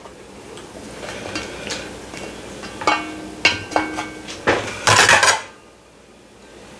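Serving utensils clinking and scraping against the cooking pot and a plate while food is dished up, with two ringing clinks about three seconds in and a louder clatter about five seconds in.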